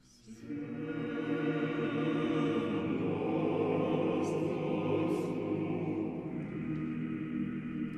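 A choir singing sustained, slow chords in the manner of chant. It comes in about half a second in, after a short lull.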